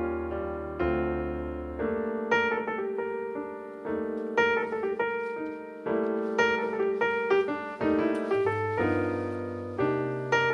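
Background music: solo piano playing a melody, a steady run of separate notes over lower held notes.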